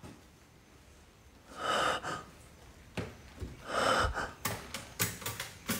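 A person breathing out hard or gasping, twice, followed near the end by a quick run of sharp clicks.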